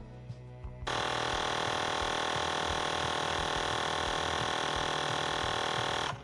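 Xiaomi Mijia Air Pump 2 portable electric air compressor running at a steady, loud, high hum while inflating a car tyre. It starts abruptly about a second in and cuts off suddenly near the end.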